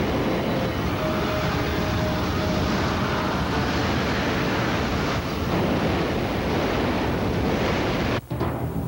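Strong tornado wind rushing over a camcorder microphone: a loud, dense, steady noise. It cuts off abruptly near the end.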